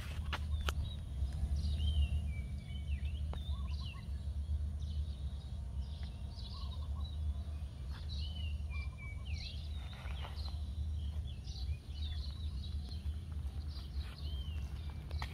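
Small birds chirping repeatedly, many short notes that swoop up and down, over a steady low rumble.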